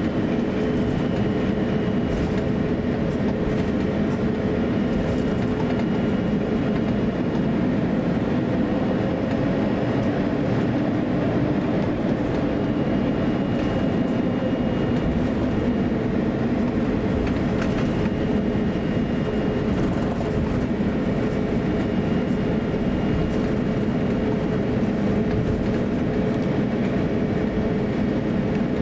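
Cabin noise of an Airbus A350-900 taxiing: the steady hum and rumble of its Rolls-Royce Trent XWB engines at taxi power, with a constant tone running through it.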